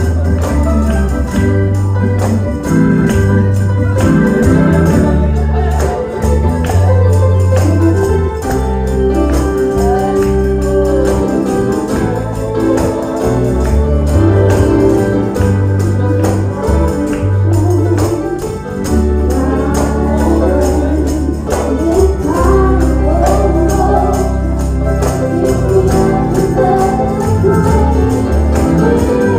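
Gospel church music: organ chords and a moving bass line under singing voices, with a steady percussive beat.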